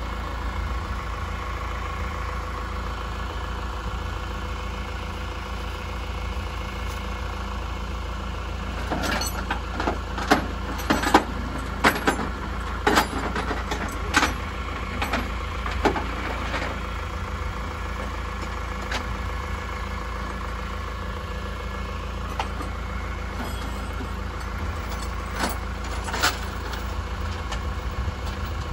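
Flatbed tow truck's engine idling steadily with a low rumble. A run of sharp clanks and clicks comes from about nine to sixteen seconds in, and a couple more near the end.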